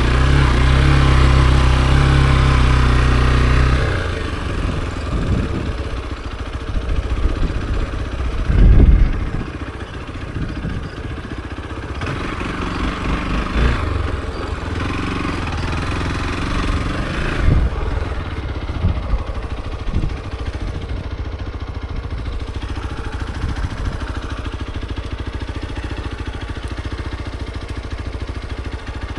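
Hero XPulse 200 4V's single-cylinder engine running under steady throttle, then dropping to a lower, quieter note about four seconds in as it eases off. A few low thumps come through, the loudest about nine seconds in.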